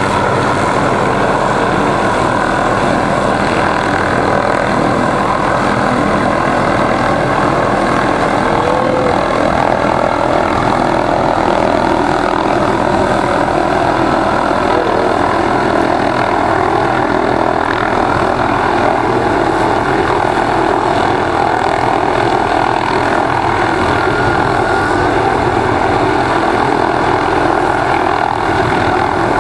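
MD 500-series light helicopter hovering close by, its turboshaft engine and main and tail rotors making a loud, steady drone that never lets up.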